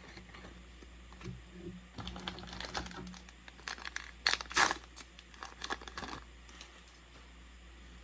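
Trading cards and a foil booster pack being handled, likely the next pack being opened: a run of light clicks and crinkling rustles, with the loudest rustle about four and a half seconds in.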